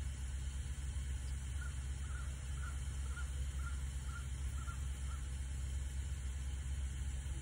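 A bird calling faintly in a run of about eight short notes, roughly two a second, over a steady low rumble.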